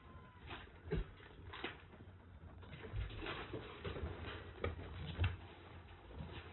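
Kittens scrambling about a wire-mesh cage: irregular clicks, rattles and scratches as they climb the wire walls and jump down, with louder thumps about one, three and five seconds in.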